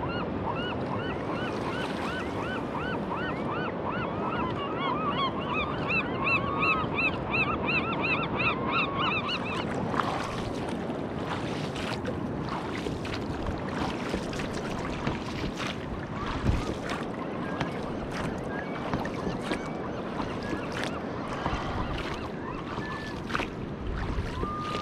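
For about the first ten seconds, a bird flock calling in quick repeated honk-like calls over steady surf noise. From about ten seconds in, close water splashing and lapping with small sharp knocks as an inflatable boat is rowed with oars.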